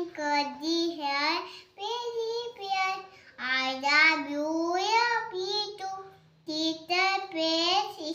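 A young girl singing a nursery rhyme, her high voice gliding up and down in short phrases with brief pauses for breath.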